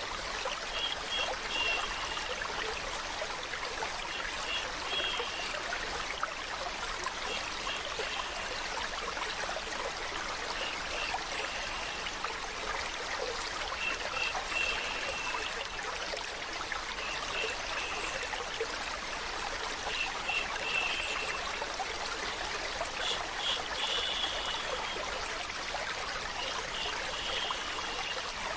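Stream water flowing and trickling in a steady, even rush. Short high chirps come through every second or two.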